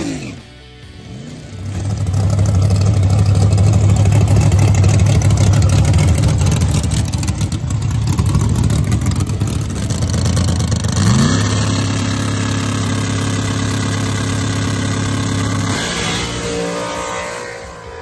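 Chevy Nova no-prep drag car's engine running loud at high, steady revs. About eleven seconds in the note drops, then sweeps up to a higher steady pitch, and it fades out near the end.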